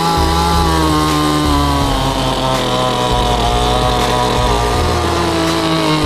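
Chainsaw running flat out as it cuts the face notch into a standing tree trunk; its pitch sags slowly as the chain bites into the wood, then holds steady.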